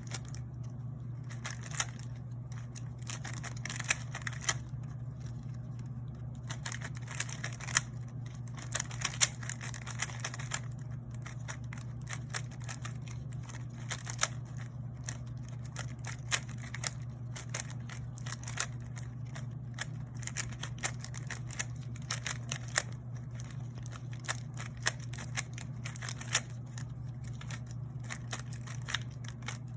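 GAN 356 Air M 3x3 speed cube being turned quickly during a solve: a steady stream of rapid plastic clicks and clacks, with a few louder snaps. A steady low hum runs underneath.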